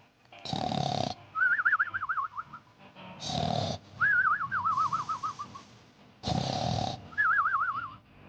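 A sleeping pet snoring in a regular rhythm, three breaths in all: each raspy snore on the in-breath is followed by a warbling whistle on the out-breath that wavers and slides down in pitch.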